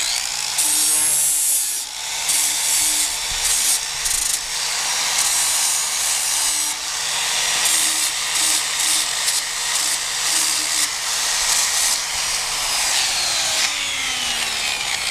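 Angle grinder with a flap disc grinding down the edges of a metal fender bracket, with a steady motor whine under a rasping grind that swells and eases as the disc bears on the metal. Near the end the grinder is switched off and winds down with a falling whine.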